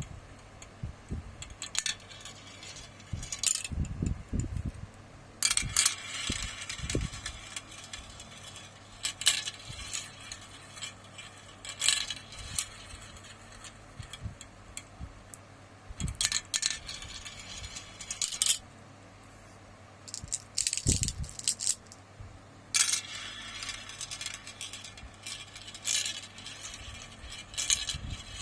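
Marbles rolling and clattering down a marble run track. Several bursts of rapid rattling clicks, each a few seconds long, with single clicks and low knocks in between.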